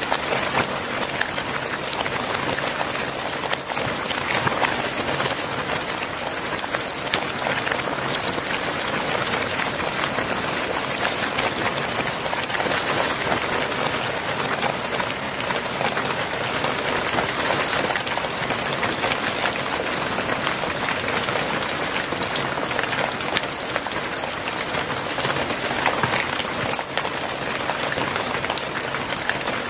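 Hail mixed with heavy rain pelting hard terracotta floor tiles: a dense, steady patter of countless small stone impacts and splashes.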